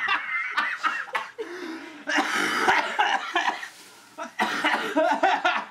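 A person coughing, sputtering and laughing in reaction to the foul taste of a Stinky Socks-flavoured Bean Boozled jelly bean. One long rough cough comes about two seconds in, with another bout near the end.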